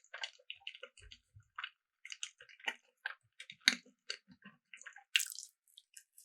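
Close-miked chewing of food: a stream of short, irregular wet mouth clicks and smacks, with a longer hissing burst about five seconds in.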